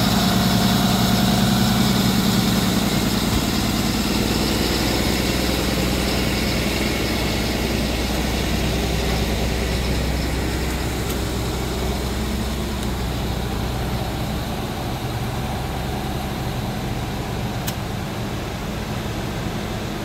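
Tow truck's diesel engine idling steadily, with a low, even hum that grows a little fainter in the second half.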